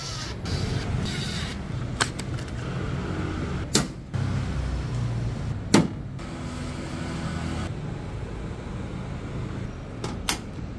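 Circuit breakers being handled and clipped onto a metal DIN rail: a few separate sharp clicks and knocks. A steady low rumble runs underneath.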